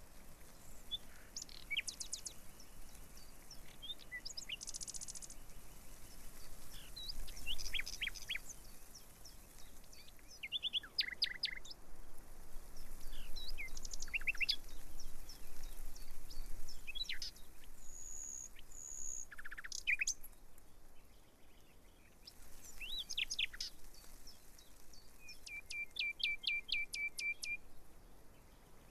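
Several birds chirping and calling in short, high chirps and trills throughout, with a steady whistled note held twice about two-thirds of the way in and a fast run of repeated chirps near the end.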